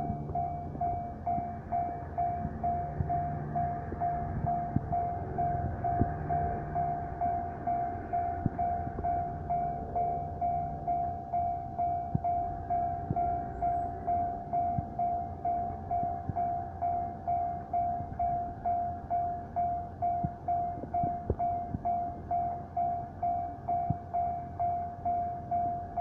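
Japanese railway level-crossing warning bell ringing, one clear tone struck about twice a second without a break. A low rumble runs under it for the first ten seconds or so.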